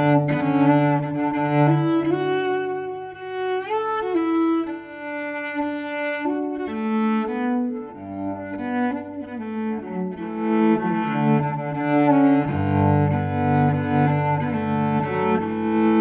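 Solo cello bowed in an instrumental passage: low notes held underneath a higher melodic line that moves from note to note, with a slide up about four seconds in.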